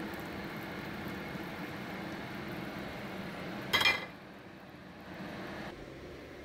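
Steady rushing noise of a pot of salted water boiling on the stove, with zucchini strips blanching in it. A little under four seconds in comes one sharp metallic clink, like a spoon knocking the steel pot, and after it the noise drops lower.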